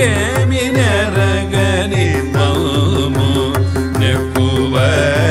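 Carnatic ensemble music in raga Varali: a melody line with sliding ornaments over a tanpura drone, with a steady mridangam beat underneath.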